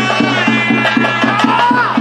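Ritual band music: a reed pipe plays a gliding melody over a steady low drone, with a drum beating about five strokes a second.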